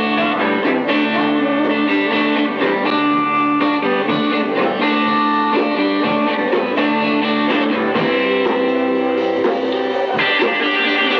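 A small band playing live, with a guitar among the instruments and held notes sounding underneath; the playing runs on without a break.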